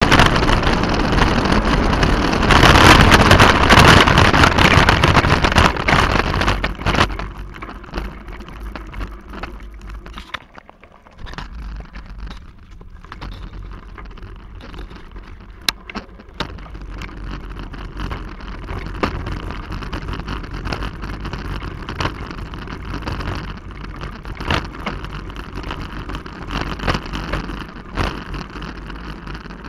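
Mountain bike riding downhill. For about the first seven seconds loud wind noise on the microphone covers everything, then it turns into a quieter crunch of tyres on a gravel trail with the bike rattling and clicking over bumps.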